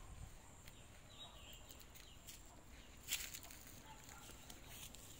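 Near silence, with one brief faint noise about three seconds in.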